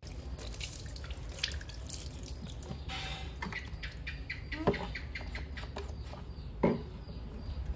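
Water pouring from a cup over a baby monkey's fur and dripping and splashing into a plastic basin, with small wet clicks and two short sharp sounds, one about halfway and one near the end.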